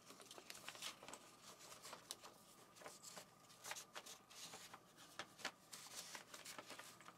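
Faint rustling and light scattered clicks of paper and packaging being handled.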